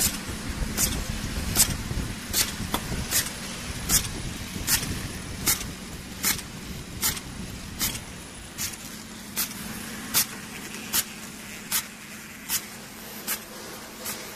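Candy bar pillow (flow-wrap) packing machine running, with a sharp, regular click about every 0.8 s over a steady machine hum.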